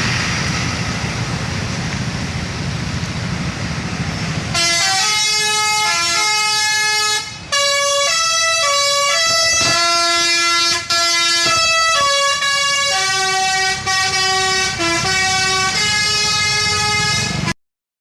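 Bus telolet horn, a set of tuned air horns, playing a Pakistani-style tune as a stepping multi-note melody for about thirteen seconds, after a few seconds of engine and traffic rumble. It cuts off abruptly near the end.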